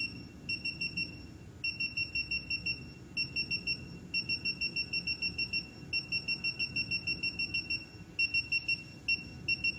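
Touchscreen key beeps from a pressotherapy and far-infrared beauty machine: rapid runs of short, high-pitched electronic beeps, about six a second, in several groups with short pauses. Each beep confirms a press that steps a zone's far-infrared heat setting up toward its maximum of 65.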